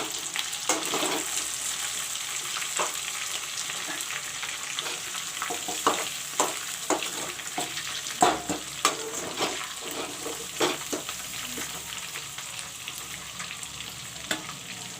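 Chicken pieces sizzling in hot mustard oil as they are lifted out of the pan, with a steady hiss and a metal spoon knocking and scraping against the pan many times, busiest in the middle.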